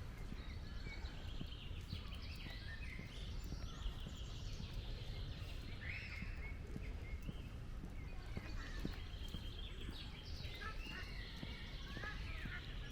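Several birds singing and chirping at once: quick, overlapping trills and chirps. Irregular soft steps of someone walking are mixed in.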